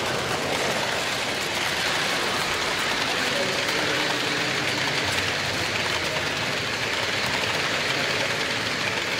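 Model trains running past on the layout's track, a steady whirring rattle of wheels and small motors, over a general background murmur.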